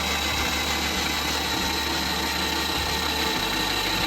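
Electric drill running steadily under load as its bit bores through a shipping container's steel wall, with a high, even whine.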